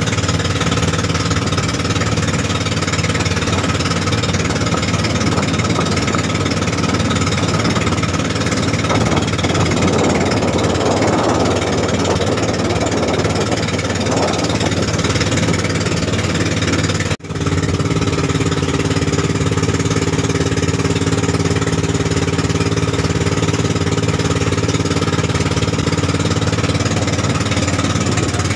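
Outrigger bangka's inboard engine running steadily under way, a loud, even, knocking drone, with water rushing and splashing against the hull and outrigger floats.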